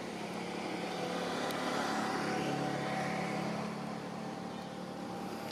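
A motor engine humming steadily in the background, growing louder for a couple of seconds about a second in and then easing off again, like a vehicle passing.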